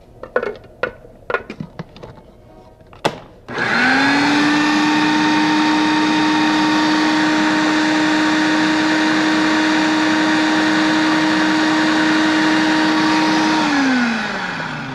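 A few sharp clicks, then a food processor's motor starts about three and a half seconds in. It rises quickly to a steady high whine as it purees soft roasted squash mixture, then winds down with a falling pitch near the end.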